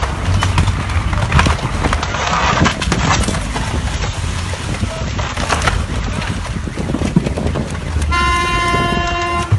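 Loud rushing noise with a deep low rumble and scattered crackles, mixed with people's voices. About eight seconds in, a car horn starts sounding with a steady tone.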